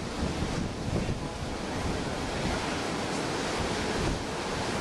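Storm-driven ocean surf breaking and washing up the beach in a continuous rush, with strong wind buffeting the microphone.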